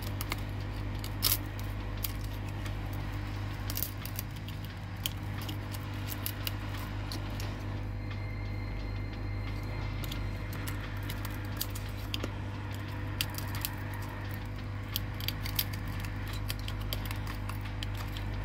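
A metal spatula scraping and prying shards of cracked back glass off an iPhone 13 Pro, making many small irregular clicks and crackles of glass, over a steady low hum.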